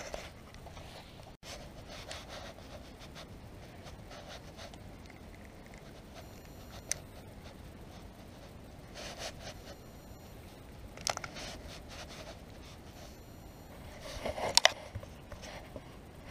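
Handling noise from a spinning rod and reel worked close to a chest-worn microphone: rubbing and scraping with a few sharp clicks. The loudest is a quick double click a little before the end.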